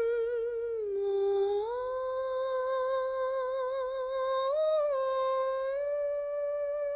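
A person humming a slow tune in long held notes with vibrato; the pitch dips about a second in, rises again shortly after, and lifts briefly near the end.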